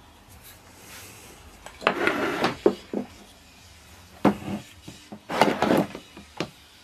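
Metal engine parts being handled on a wooden workbench: several short knocks, scrapes and rubs as the ignition stator plate and small parts are moved and set down.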